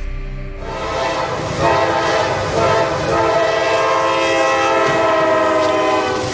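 Train horn sounding one long, steady blast of several tones at once, starting about half a second in and stopping near the end, over the low rumble of the train.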